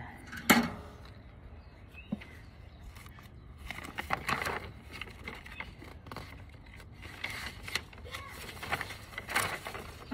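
Paper being handled and crumpled in several rustling bursts while it is fed to a fire, with a sharp click about half a second in.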